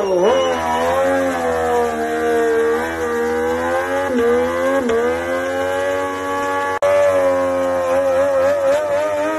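Moto2 racing motorcycle's Triumph 765 three-cylinder engine held at high revs in a burnout, the rear tyre spinning in place. The revs dip briefly twice about four and five seconds in, and the sound cuts out for an instant a little before seven seconds.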